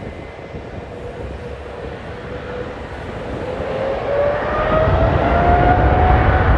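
Airbus A319 jet engines spooling up: a whine rising steadily in pitch over a low rumble that grows louder through the second half.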